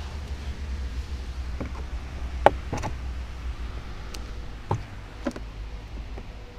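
Plastic retaining clips of a Seat Leon Mk3's rear door trim panel popping loose as a plastic trim removal tool pries the panel off: several sharp clicks, the loudest about two and a half seconds in, over a steady low rumble.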